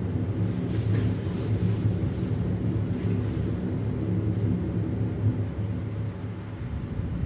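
Low, steady rumbling drone with a hum and a layer of hiss over it: the engine-room ambience of a science-fiction space-station interior.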